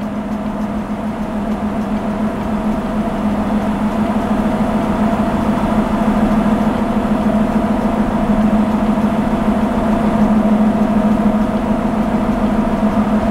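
The Aston Martin V12 Vantage AMR's V12 engine idling steadily through its AMR titanium exhaust, a steady low hum that slowly grows a little louder.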